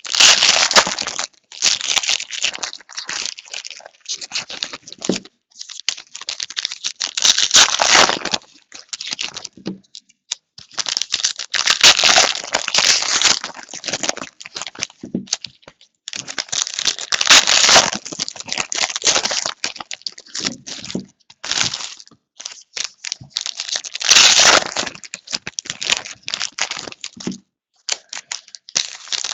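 Trading-card pack wrappers being torn open and crinkled by hand: a run of noisy crackling bursts, each a second or two long, every few seconds.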